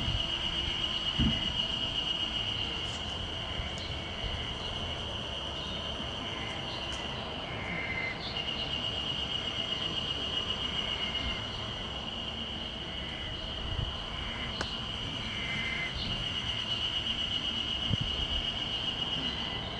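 Chorus of Ezo harusemi cicadas, a steady high pulsing drone that drops out for a few seconds in the middle and then starts up again. A few low thumps are also heard, the loudest about a second in.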